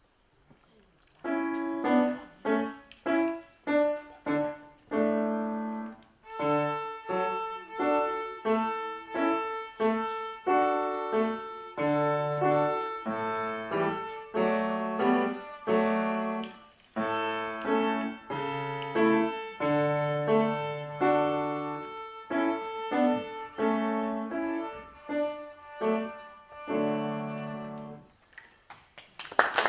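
Violin and grand piano playing a simple tune together: a child's violin over piano accompaniment. The piece starts with short detached notes about a second in, becomes fuller from about six seconds, and ends shortly before the close. Applause breaks out at the very end.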